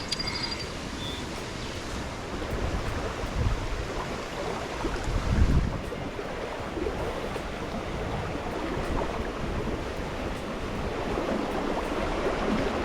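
Swift, rain-swollen stream water rushing steadily, with a couple of low rumbles about three and a half and five and a half seconds in.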